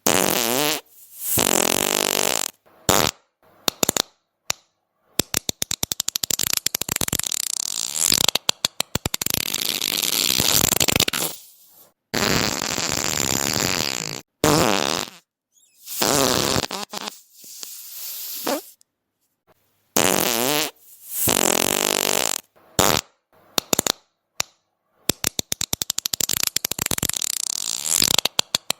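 A string of fart sounds, one after another with short silent gaps: some long and drawn out with a wavering pitch, others quick sputtering runs of many short pops.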